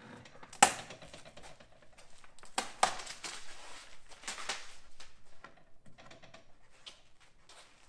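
Scattered sharp knocks and clicks as a full-size router, already stopped, is handled and knocked against a formica-laminated plywood board on a table. The loudest knock comes about half a second in, with smaller clusters around three and four and a half seconds.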